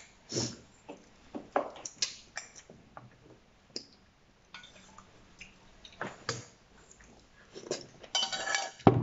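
Wooden chopsticks clinking and scraping against a stainless steel pot in scattered short knocks, with mouth sounds of eating; the busiest, loudest stretch comes near the end.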